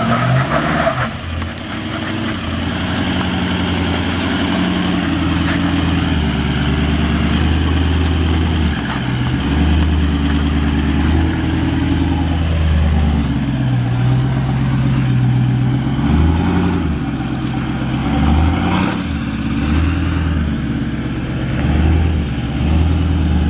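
Toyota Land Cruiser 200 series twin-turbo V8 diesel working under load, its revs rising and falling several times as it crawls up a rock step.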